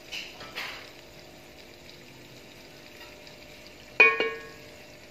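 Potato and spice masala sizzling softly in a cooking pot, with two brief scrapes in the first second and a sharp metal clank of cookware that rings briefly about four seconds in.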